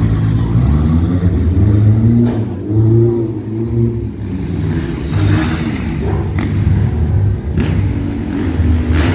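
Motor vehicle engines revving, their pitch rising and falling, as a car and a dirt bike drive around the stunt arena.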